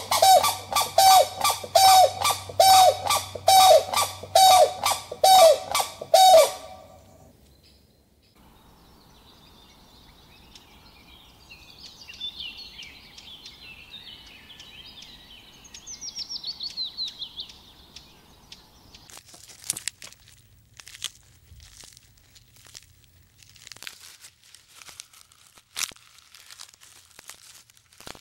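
Grey crowned crane giving a rapid series of loud honking calls, about two a second, which stop about six seconds in. After that come faint small-bird chirps with a brief high trill, then scattered sharp clicks and knocks.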